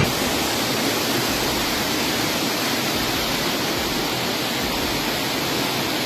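Floodwater rushing: a steady, even water noise with no let-up.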